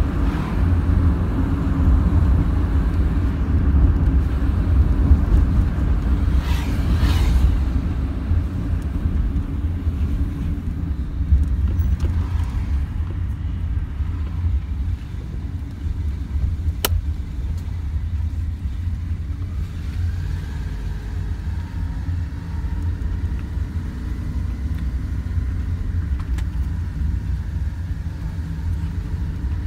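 Steady low rumble of road and engine noise inside a moving car's cabin, with a single sharp click about halfway through.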